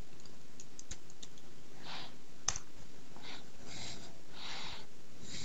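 A few sharp clicks of a computer keyboard and mouse, with several short soft hisses in between.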